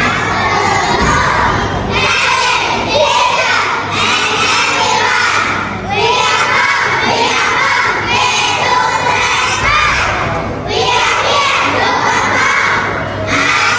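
A crowd of young children shouting and cheering, many voices at once, coming in surges every couple of seconds.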